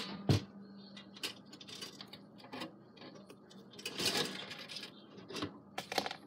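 Scattered light clicks and clatter, with a busier rustling stretch about four seconds in and another near the end, over a faint steady hum.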